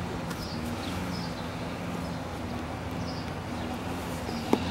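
Hard plastic sight case being handled and pried at its latches, with one sharp plastic click near the end. Under it a steady low hum and faint, repeated high chirps like birds.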